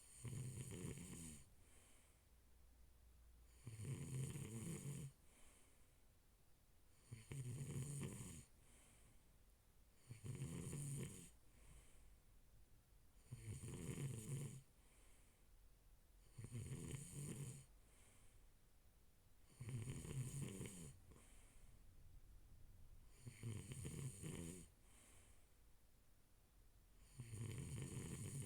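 A person snoring: nine rough snores, one about every three and a half seconds, each lasting a little over a second.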